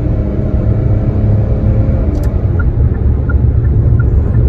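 Car driving on the road, heard from inside the cabin: a steady low road and engine rumble. A click comes a little past two seconds in, then a light regular ticking starts, about three ticks every two seconds.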